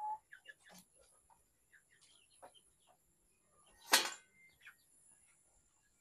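One sharp metal clank about four seconds in, from the lid of a steel drum smoker, over faint scattered chirps of chickens and a steady high-pitched hiss.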